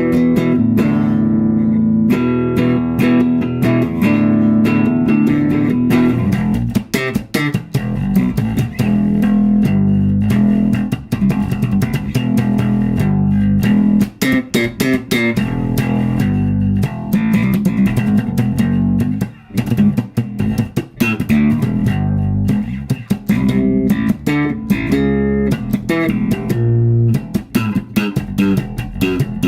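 Electric bass guitar played through an Orange OBC 112 bass cabinet (a single 12-inch speaker) driven by an Orange Terror Bass 500 head, improvising a run of plucked notes and lines. The tone is full and low, with little high end.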